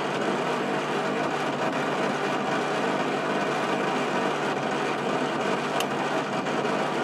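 Servis Caress 1300 washing machine on a high-speed spin, a steady mechanical rumble with a constant hum, the sound of very bad drum bearings. A single short tick near the end.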